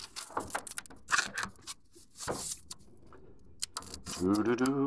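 A knife cutting through packing tape on a cardboard box: a run of short, irregular scraping strokes and clicks.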